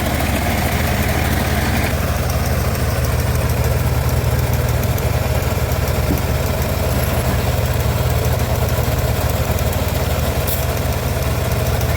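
The engine of a home-built bandsaw sawmill running steadily with a low drone. A higher hiss over it dies away about two seconds in.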